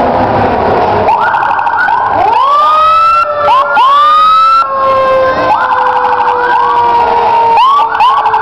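Several fire truck sirens sounding at once: repeated quick rising whoops over a long steady wail that slowly falls in pitch, loud throughout.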